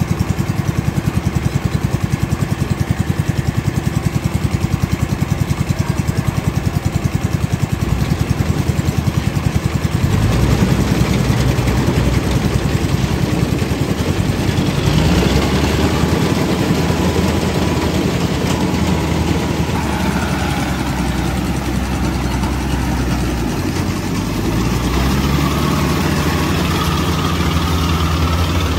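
Kubota rice combine harvester's diesel engine running with a fast, even pulsing beat. About ten seconds in it grows louder and deeper, with a brief rise in pitch a few seconds later.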